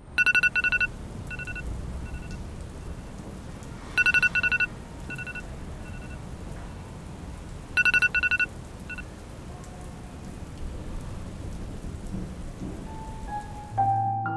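Electronic alarm beeping in bursts of four or five quick high beeps about every four seconds, each burst trailed by fainter repeats that fade away like an echo, over a low steady rumble. Soft piano music comes in near the end.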